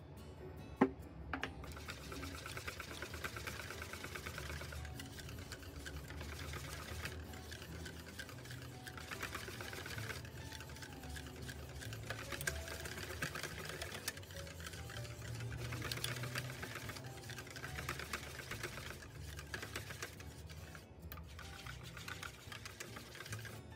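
Wire balloon whisk beating crepe batter in a stainless steel bowl, its wires clicking and rattling rapidly and steadily against the bowl as melted butter and oil are mixed in. A single sharp knock comes about a second in, just before the whisking starts.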